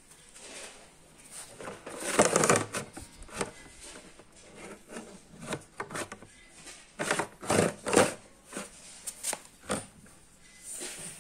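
Irregular handling noise, with rustling, rubbing and sharp clicks, loudest in clusters about two seconds in and again about seven to eight seconds in. No motor is running.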